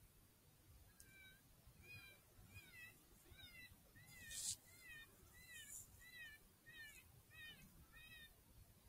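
Faint coyote pup distress sound played from an electronic game caller: a steady series of short whining yelps, about two a second, each rising then falling in pitch. A brief hissing rustle about halfway through.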